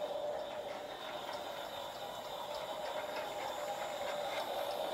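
Toy Christmas train running on its track: a steady motor whine with faint clicking from the wheels on the rails, running without derailing.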